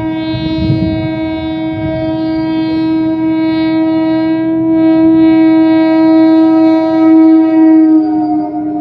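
Train air horn sounding one long, steady blast, its pitch dropping slightly near the end.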